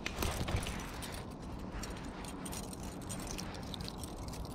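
Metal chain fish stringer jangling and clicking as its links and wire snap clips are handled, a string of small irregular metallic clicks over steady low background noise.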